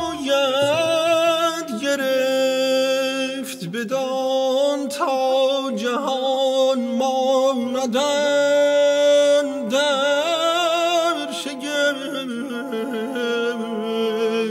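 A small vocal ensemble singing long, overlapping held notes with vibrato, several voices at once. A low, steady note joins beneath them about eight seconds in.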